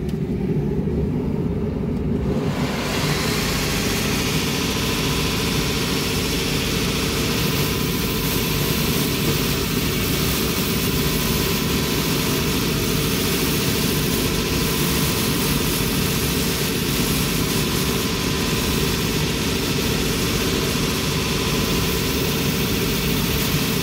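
Shoe finishing machine running steadily, its spinning abrasive sanding bob scouring down a leather patch on a leather brogue upper. A steady hum, joined by a hiss about two and a half seconds in.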